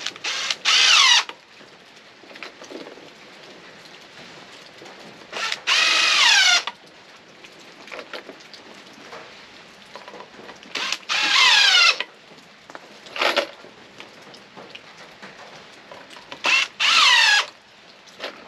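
Power drill driving screws into pallet wood in four runs of about a second each, the motor's pitch falling under load as each screw bites and seats, with a few short blips of the trigger between.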